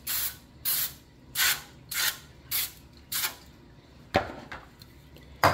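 Aerosol nonstick cooking spray being sprayed into a disposable aluminium foil pan in about six short hisses, roughly one every half second or so. Near the end come two sharp knocks, the second one louder.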